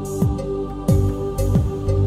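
Background music with a steady beat: a deep drum stroke about every 0.6 s under held tones.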